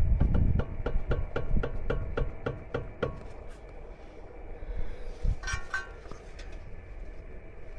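Rhythmic metallic clicking, about five to six a second, for the first three seconds, then a short high squeal about five and a half seconds in: an abnormal noise from a car's brakes.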